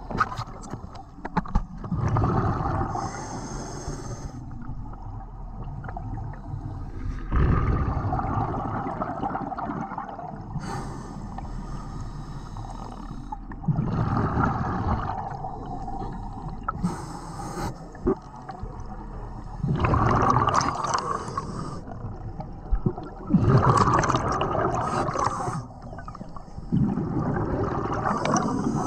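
Scuba diver breathing through a regulator underwater: a hiss on each inhale, then a gurgling rush of exhaled bubbles, repeating every few seconds.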